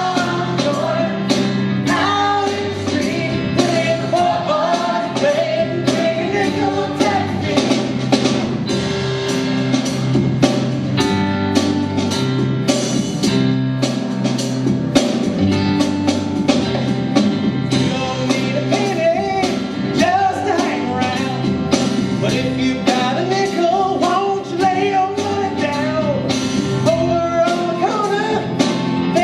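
Stage musical number: a cast singing together over upbeat instrumental accompaniment with a steady drum beat.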